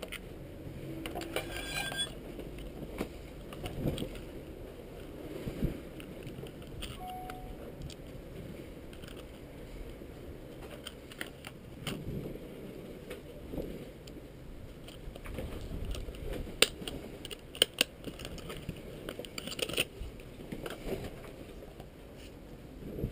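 Clear plastic packaging and small electronic parts being handled: rustling, crinkling, and scattered clicks and taps as pieces are set down on a table, with a few sharp clicks near the end. A steady low rumble runs underneath.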